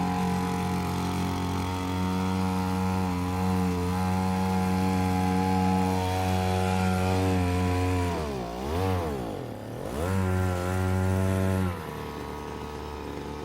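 Small 2 hp two-stroke outboard motor, a converted whipper snipper engine, running steadily; about eight seconds in its revs drop and pick up twice, and near the end the engine note falls away.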